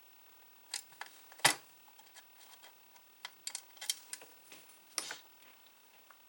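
Scattered small sharp clicks and taps of a screwdriver and small metal screws being worked out of a disk drive's casing, about seven in all, the loudest about one and a half seconds in.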